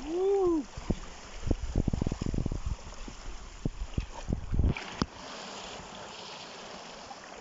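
An inflatable boat bumping and rubbing against the phone as it is carried into the water: a quick, irregular run of dull thumps, then steady wind noise on the microphone. It opens with a short voice-like call that rises and falls.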